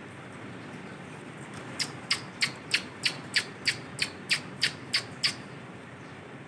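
Male Indian ringneck parakeet giving a rapid series of about a dozen short, sharp squawks, about three a second, starting about two seconds in.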